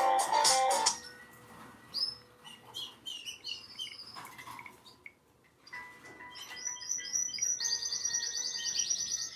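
Samsung Galaxy S3 ringtone of recorded birdsong: bird chirps and twittering, with a short pause about halfway and denser chirping near the end. The last notes of a plucked-guitar ringtone sound in the first second.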